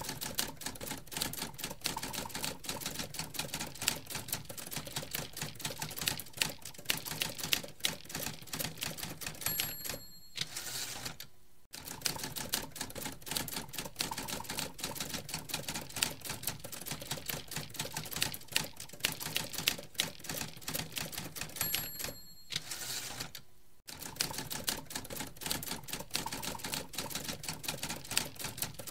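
Typewriter sound effect: rapid keystrokes clattering steadily, broken twice by a bell ding and a carriage return, about ten seconds in and again about twenty-two seconds in.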